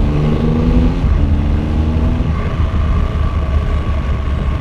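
Triumph Rocket 3 R Storm's three-cylinder engine pulling under acceleration, its pitch rising slowly over the first two seconds and then holding steady. It is heard through a rider's mic with heavy wind rumble.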